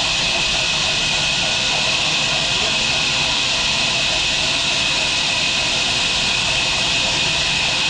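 Sawmill machinery running steadily: a loud, unchanging high-pitched hiss with a low rumble beneath and no separate cuts or knocks.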